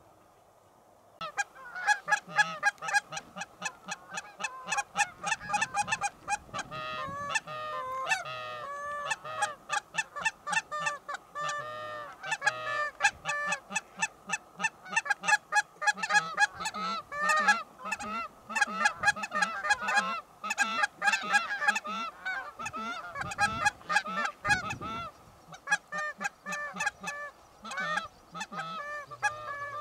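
A flock of Canada geese honking, many calls overlapping, starting suddenly about a second in and going on without a break.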